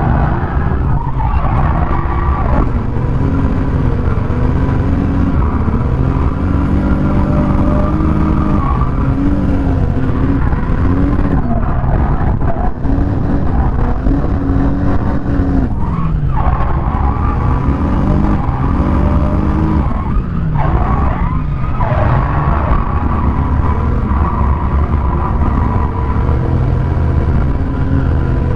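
Ford Scorpio drift car's engine at high revs, heard from inside the cabin, its pitch rising and dropping over and over as the throttle is worked, with tyres squealing as the car slides.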